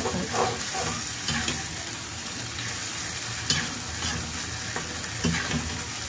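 A perforated metal spatula stirring and scraping a thick spice paste in a black iron karahi, over a steady sizzle of the masala frying in oil. A few sharper scrapes come through along the way. The paste is being fried down (koshano) until the oil separates and rises to the top.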